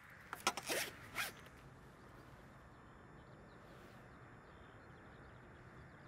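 A zip pulled in a few quick rasping strokes about half a second in, then a faint steady outdoor background.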